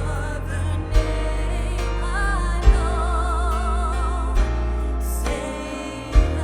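Live contemporary worship band playing: a sung melody held with vibrato over bass, piano and guitar, with drum hits marking the beat.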